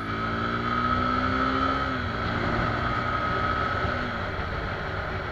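Suzuki Gixxer SF 250's 249 cc single-cylinder four-stroke engine under hard acceleration. Its pitch rises, drops at an upshift about two seconds in, then climbs again, under heavy wind rush at speeds over 60 km/h, with a steady high whistle.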